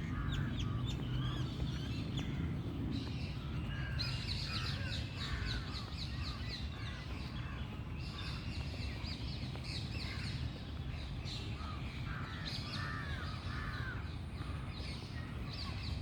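Many birds calling and chirping at once in a busy mix of short arching calls and fast repeated high chirps, over a steady low rumble.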